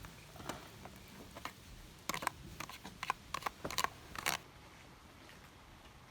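A quick run of sharp clicks and rustles, like gear being handled, starting about two seconds in and stopping after about two seconds.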